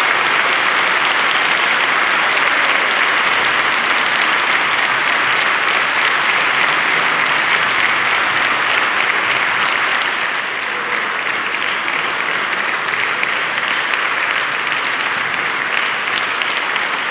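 A large audience applauding, dense steady clapping that gets a little softer from about ten seconds in.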